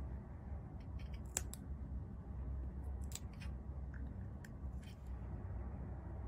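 Small crisp ticks and crackles of a metal weeding hook picking and peeling scraps of adhesive vinyl off their backing paper, about ten scattered through the first five seconds, over a steady low hum.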